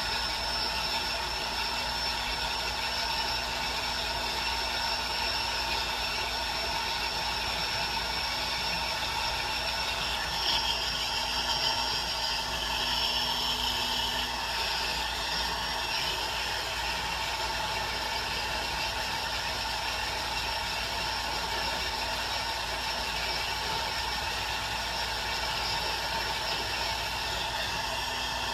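Small jeweler's rotary tool motor running steadily with a whir while it smooths and cleans up a freshly welded charm bail. From about ten to fourteen seconds in the sound gets a little louder and brighter as the tool bears on the piece.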